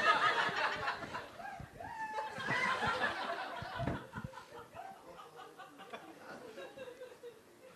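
Audience laughing, strongest in the first few seconds and dying away after about four seconds.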